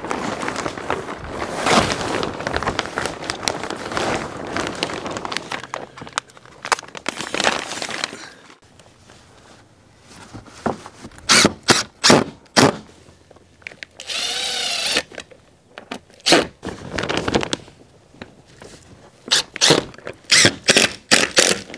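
Plastic sheeting rustling and crinkling as it is pulled over the greenhouse hoops. From about halfway on, a cordless drill drives screws through a wooden strip to clamp the plastic to the frame, in several short bursts, one with a whine that rises and falls.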